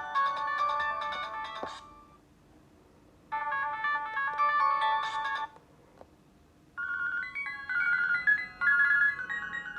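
Nokia 220 mobile phone ringtones and alert tones played one after another. One melody stops about two seconds in, a short tune plays from about three to five and a half seconds, and another melody starts about seven seconds in.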